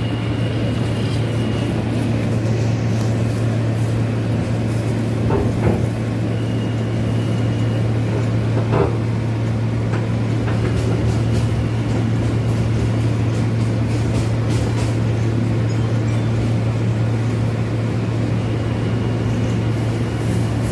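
New York City subway train running, heard from inside the car: a steady low hum and rumble, with a couple of sharp clacks from the rails and a faint high whine that comes and goes.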